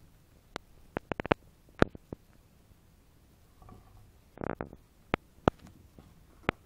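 Sharp irregular clicks and taps from a kitten and a long-eared hedgehog scuffling on a carpeted floor, several in quick succession early on, with a short rough noisy burst about four and a half seconds in.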